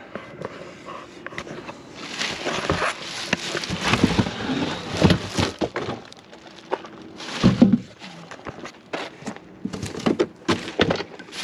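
Clear plastic bag crinkling and rustling, with cardboard scraping, as a wrapped wheel is handled and lifted out of its box. A low thump, the loudest sound, comes about two-thirds of the way through.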